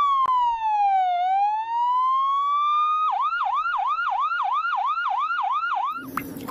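Electronic ambulance siren. It gives one slow wail that falls and rises again over about three seconds, then switches to a fast yelp of about four quick sweeps a second, and stops about six seconds in.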